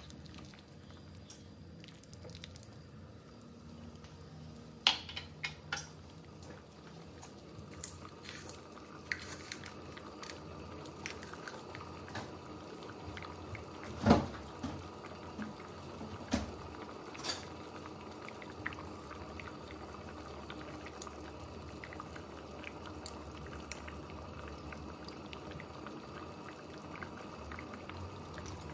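Thick mung bean porridge simmering in a pot, stirred with a spatula at first, with scattered pops of bursting bubbles and one louder sharp tap about halfway through.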